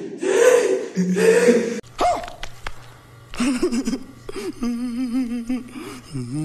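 A man's voice: brief speech, then a cut-in comedy film clip in which a man makes drawn-out vocal sounds whose pitch wobbles up and down.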